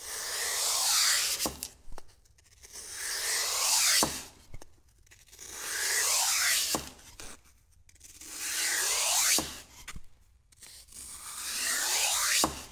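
Kitchen knife slicing down through a block of green floral foam, five slow cuts each a second or two long with short pauses between, a dry hissing scrape of the blade through the foam.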